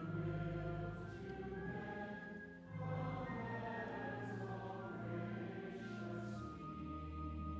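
Choir singing slow, held chords over a low bass, the chords changing every few seconds.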